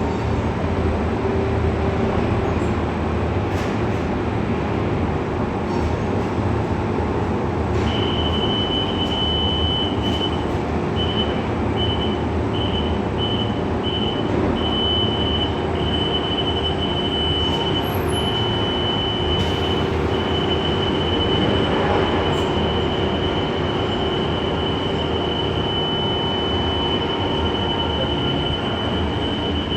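A CNC machine cutting notches into a TMT bar mill roll, running steadily. A high-pitched whine comes in about eight seconds in, stutters briefly, then holds steady.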